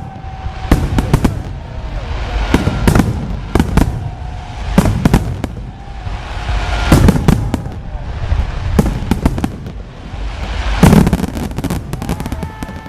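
Aerial fireworks going off: many loud bangs and crackles in quick, irregular succession, with faint whistling tones between some of the bursts.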